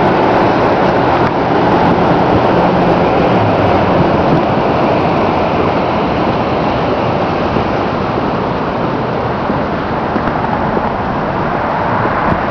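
Steady, loud rushing noise of wind on the microphone, mixed with street traffic.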